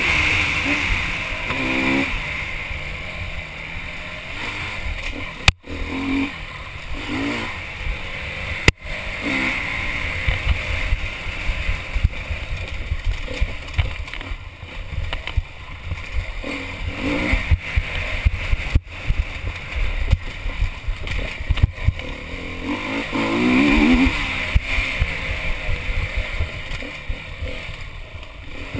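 Honda enduro motorcycle engine running hard with repeated rises and falls in revs, heard from the onboard camera over a constant low rumble of wind and the bike bouncing over the trail. The sound cuts out very briefly three times.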